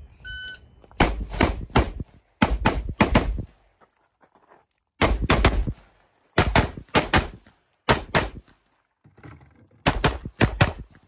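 A shot timer beeps once to start. Then come strings of rapid gunshots, about four shots a second, in six bursts separated by pauses of roughly a second.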